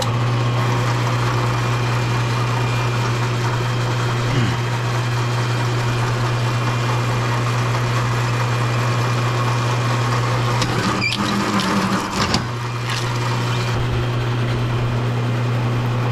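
Electric copper wire-stripping machine switched on and running steadily with a strong low mains-motor hum, stripping insulation off copper wire. Its running sound dips briefly about three quarters of the way through, with a couple of sharp clicks.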